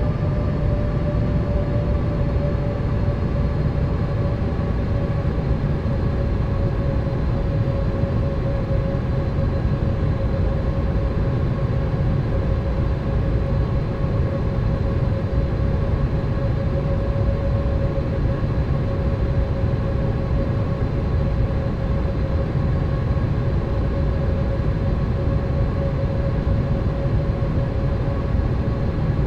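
Steady drone of a Boeing 787's jet engines heard inside the cabin: a dense low rumble with a steady hum on top.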